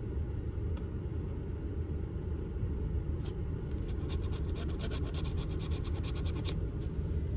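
A coin scratching the latex coating off a paper lottery scratch-off ticket in quick rapid strokes, mostly from about three seconds in to past six seconds, over a steady low rumble.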